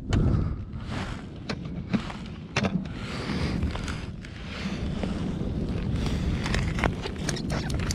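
Rustling of winter clothing and handling noise close to the microphone as a perch is unhooked over an ice hole, with scattered clicks and taps and a steady low wind rumble.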